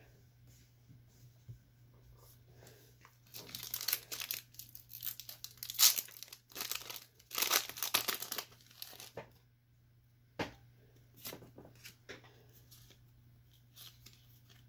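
Foil wrapper of a Pokémon TCG Celebrations booster pack being torn open and crinkled, in crackling bursts from about three to nine seconds in. A single sharp tick follows about a second later.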